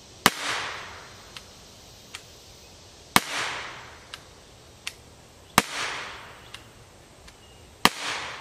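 Umarex TR50 .50-calibre CO2 revolver firing four shots of polymer balls about two and a half seconds apart. Each is a sharp report that trails off over about a second, with fainter clicks between the shots.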